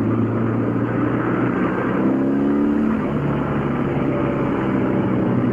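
BMW R1200GS boxer-twin engine running as the bike rides slowly through traffic, with a brief rise in revs about two seconds in that falls back a second later.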